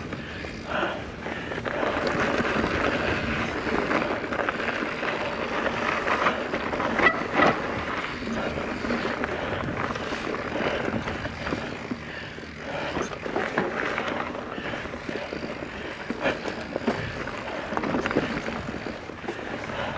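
Mountain bike riding over a dirt trail: a steady rush of tyre and wind noise with scattered knocks and rattles, and two sharper knocks about seven seconds in.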